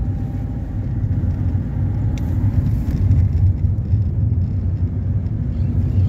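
Car driving at steady speed, heard from inside the cabin: a steady low rumble of engine and tyre noise. A brief click about two seconds in.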